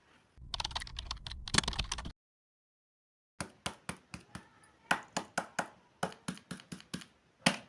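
Candy packaging being handled: a short burst of dense crinkling and clicking, a cut to silence about two seconds in, then a run of sharp separate taps and clicks, about two to three a second.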